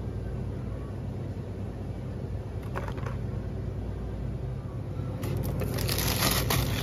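Steady low hum of a shop's background noise. A brief rustle comes about three seconds in, and from about five seconds in there is louder rustling and handling noise as goods on the shelf are touched.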